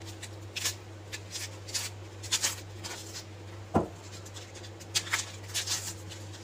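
Fibrous skin being peeled and torn off palmyra sprouts by hand: a series of short scratchy rips and rustles, with one stronger bump about four seconds in, over a steady low hum.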